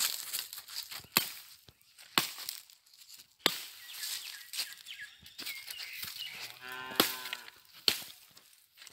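A machete chopping into the base of a felled coconut palm's crown to cut out the heart of palm: about five sharp single strikes spaced a second or more apart. A cow moos once, for about a second, around two-thirds of the way through.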